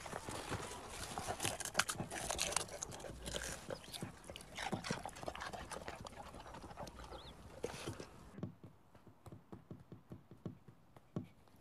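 A dog digging at garden soil with its paws: a rapid, irregular scratching and crunching of dirt. It stops abruptly about eight seconds in, leaving only faint scattered ticks.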